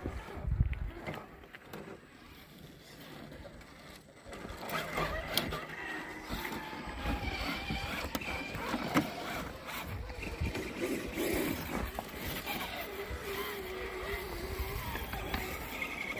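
Small electric RC scale rock crawlers driving over rock, their motors and gears whining, the whine steadier over the last few seconds.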